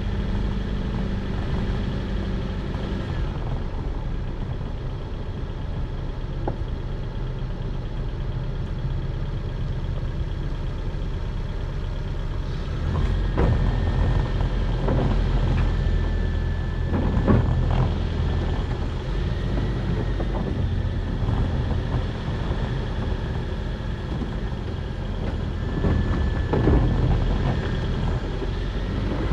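A motor vehicle's engine running steadily as a low rumble, with a few knocks and some short, high, steady squeals in the second half.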